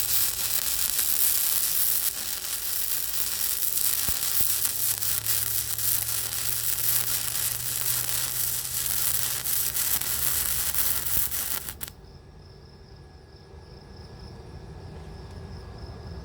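MIG welding arc crackling and sizzling steadily as a bead is run, cutting off abruptly about twelve seconds in. A low hum carries on underneath and remains after the arc stops.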